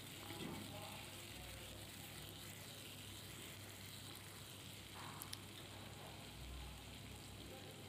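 Sliced onions, ginger and garlic frying in hot oil in a nonstick kadai: a soft, steady sizzle, with a light click about five seconds in.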